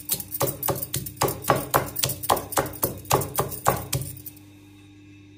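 Stone pestle pounding peanuts in a stone mortar, sharp regular strikes about four a second that stop about four seconds in. A faint steady hum is left after.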